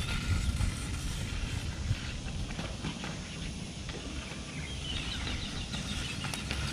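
Wind rumbling on the microphone, with faint taps of floorball sticks on a plastic ball and concrete as players dribble; a few sharper clicks near the end.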